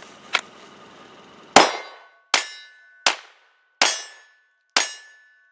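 9mm Glock 19 Gen 3 pistol firing five quick shots, roughly one every three-quarters of a second, each followed by a short metallic ringing tone.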